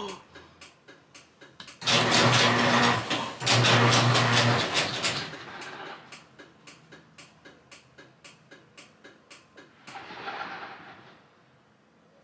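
Garage door opener running to close the door: a steady low motor hum in two loud stretches near the start, with regular clicking about two to three times a second through most of it and another brief rush of noise near the end. The door will not stay closed because sunlight is blinding its safety sensor.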